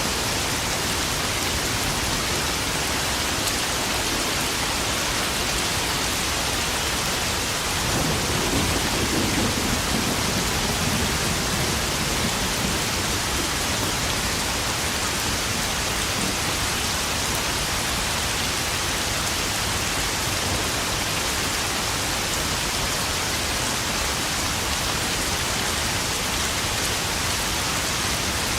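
Steady heavy rain pattering on puddles, with a low rumble of thunder swelling about eight seconds in and fading over a few seconds.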